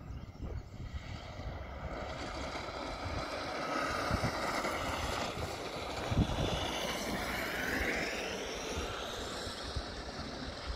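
Electric Bambino kart with a MightE motor whining as it passes. The whine grows louder toward the middle and rises in pitch about three-quarters of the way through, then fades.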